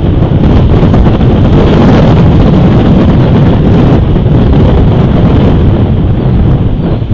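Strong wind buffeting the camera's outdoor microphone: a loud, continuous rumble that rises and falls in gusts.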